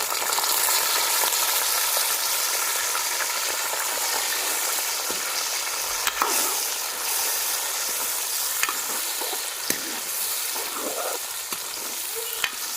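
Kaleji (goat liver pieces) frying in hot ghee in a pan: a steady sizzle, with a few sharp clicks of a utensil as the pieces are stirred.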